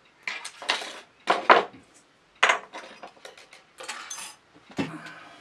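Metal pliers and hand tools clinking and clattering against a tabletop as they are handled and set down: a string of sharp knocks, the loudest about a second and a half in.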